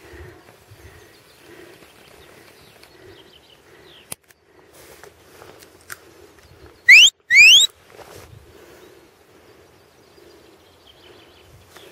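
Two loud rising whistle blasts a fraction of a second apart, the second a little longer: a shepherd's whistle command to a working sheepdog.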